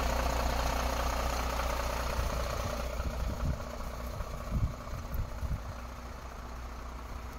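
MAN TGM 18.340 truck's six-cylinder diesel engine idling with a steady low hum that gets gradually quieter. A few dull low thumps come in the middle.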